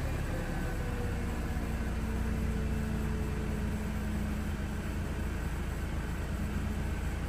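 The supercharged four-cylinder engine of a 2004 Mercedes-Benz C230 Kompressor idles steadily at the exhaust during a cold start. Right after a rev, its idle eases down a little over the first few seconds.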